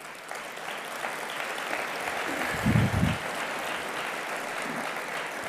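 Audience applauding, building over the first second or two and holding steady, with a brief voice heard about three seconds in.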